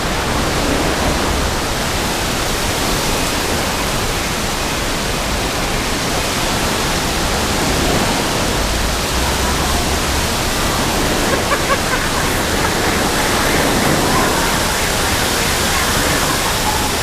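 Heavy rainwater pouring off buildings and splashing down in a steady, loud rush of water, with a few brief louder moments about two-thirds of the way through.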